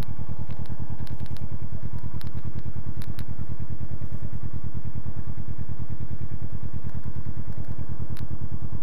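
Kawasaki ER-6n's parallel-twin engine idling steadily, heard through a helmet camera.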